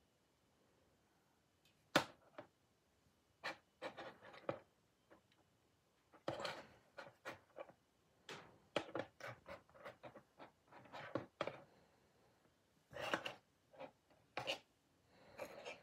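Small hard-plastic McDonald's Changeables food toys being handled and transformed: scattered clicks, snaps and short rubs of plastic parts, with quiet gaps between them.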